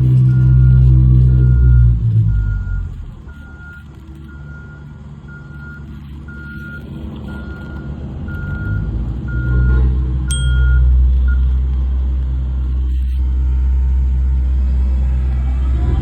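Reversing alarm of a heavy construction vehicle beeping about once a second over its engine. The engine fades after a couple of seconds and grows loud again near ten seconds. The beeping stops about eleven seconds in.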